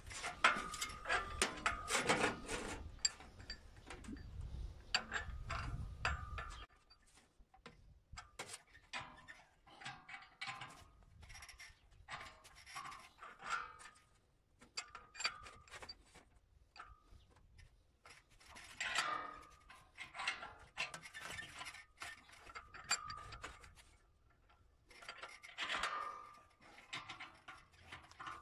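A metal sheet being bent in a hand lever bending tool clamped in a vise: scattered clicks and taps of metal on metal, with louder bursts of scraping near the start, about 19 seconds in and again about 25 seconds in.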